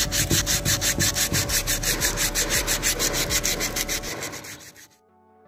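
Emery paper rubbed by hand on the metal face of an AC compressor's clutch plate: quick, even, rasping scrubbing strokes that clean and key the surface before the clutch is refitted. The rubbing fades out near the end.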